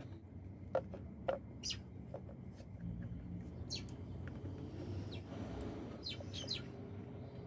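Light clicks and taps from handling a small relay board and its wires against a plastic panel, two sharper clicks about a second in. Short bird chirps come and go in the background.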